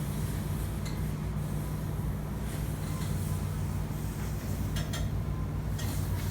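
A steady low hum, with a few faint clicks about one, five and six seconds in.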